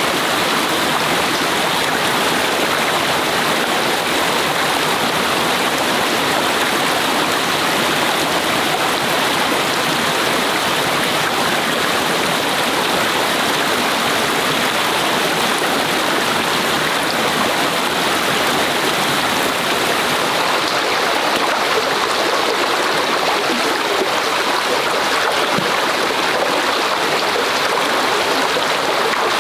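Forest stream water flowing and splashing steadily.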